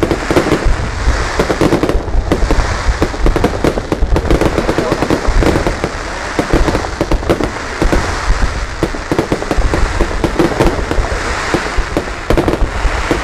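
Fireworks display: a dense, unbroken run of loud bangs and crackles.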